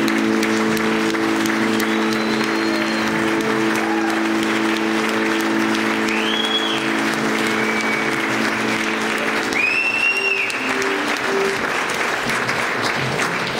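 Congregation applauding with several whistles over a held final instrumental chord, which stops about ten seconds in and is followed by a few short notes.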